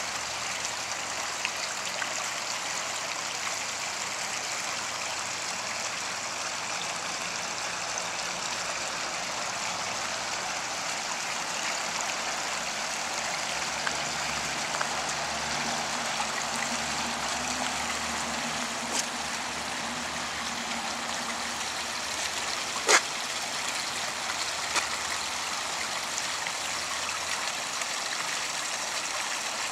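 Steady splashing and trickling of water from a small garden-pond waterfall, with a sharp click about 23 seconds in.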